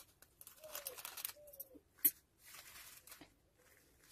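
Scissors cutting the thin black plastic-bag covering of a homemade kite, with the plastic crinkling. The loudest sound is a sharp snip of the blades just after two seconds in.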